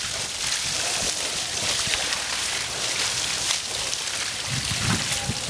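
Water from a garden hose spraying onto an elephant's wet hide and splashing onto the wet ground, a steady hiss.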